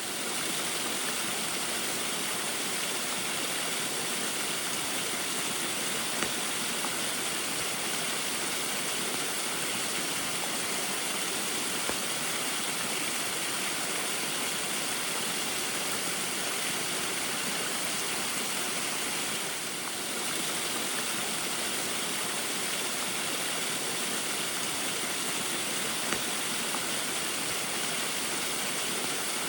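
Small waterfall in the rain: a steady, even rush of falling and splashing water, dipping briefly in level about two-thirds of the way through.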